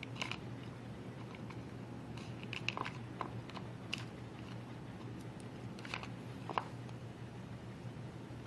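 Small clicks, taps and sticky scraping of a utensil spreading strawberry jam over jerky pieces and a cut heartworm pill, a few sharper taps near the middle, over a steady low hum.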